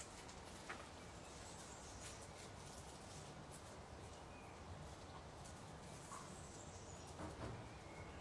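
Quiet outdoor ambience: a faint steady hiss with a few faint bird chirps and a couple of soft clicks.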